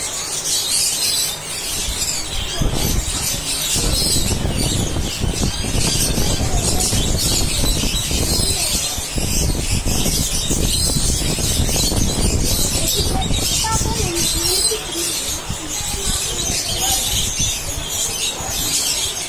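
Busy pet-market ambience: a steady, dense high chirping and chatter, typical of many caged small birds, with a heavy low rumble through the middle and a few faint short squeaks.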